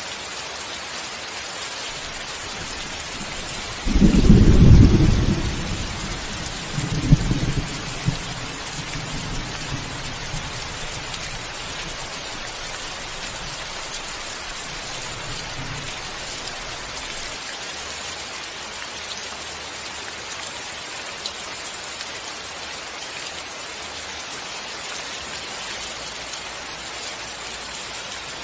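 Thunderstorm: steady rain hiss with a loud clap of thunder a few seconds in, a second sharper crack a few seconds later, then rumbling that fades away while the rain keeps on.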